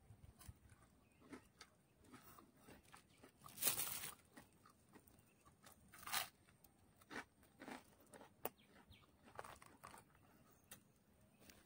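Faint, scattered crunching and rustling of a person eating a grilled meal by hand, with a louder rustle about three and a half seconds in and another near six seconds.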